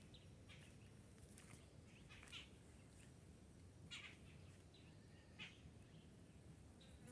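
Faint forest ambience with scattered short, high bird chirps, a few louder ones about two and a half, four and five and a half seconds in, over a low steady rumble.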